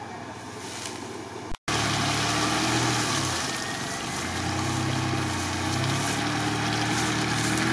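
Mitsubishi Pajero's engine running under load while stuck in swamp mud and pulling against a winch cable anchored to a tree, the revs rising and falling. The sound drops out for a split second about one and a half seconds in, then comes back louder.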